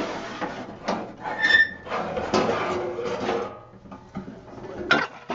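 Amiga 2000 case cover being slid off its chassis: scraping and rubbing with a few clicks, a short squeak about a second and a half in, and a sharp knock near the end.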